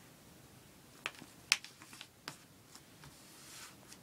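Sheet of origami paper being folded and creased by hand: a few short, sharp crinkles and taps, then a soft rubbing of paper near the end.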